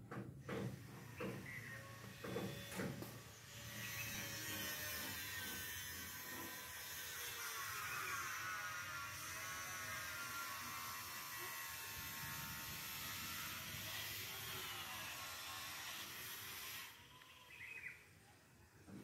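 Outdoor ambience with a steady buzzing drone that wavers slightly in pitch, starting a few seconds in and dropping away near the end. A few clicks and knocks come before it.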